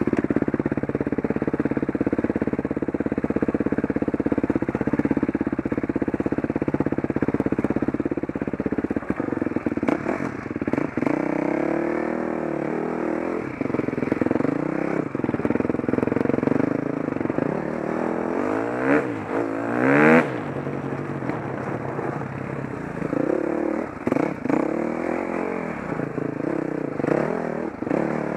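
A vehicle engine running, at first at a steady pitch and then rising and falling as it revs, with a quick climb about nineteen seconds in.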